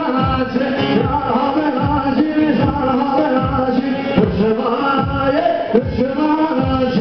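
Loud Turkish halay dance music with singing over a deep drum beat, one stroke about every 0.8 s, each stroke falling in pitch.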